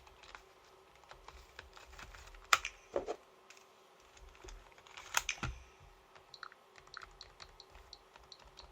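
Fingertips tapping irregularly on a Nintendo Switch's glass touchscreen, light clicks with a few louder knocks, over a faint steady hum.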